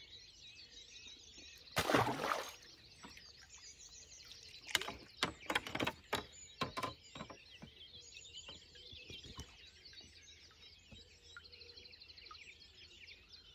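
Wild birds singing and chirping steadily. About two seconds in, a short splash as a tench is slipped from the hand into the water, followed a few seconds later by a run of sharp clicks and knocks.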